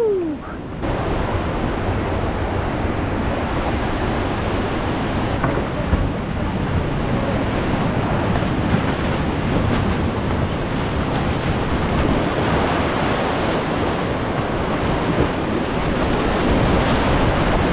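Whitewater rapids rushing steadily, heard close from a kayak running them, with water splashing over the boat.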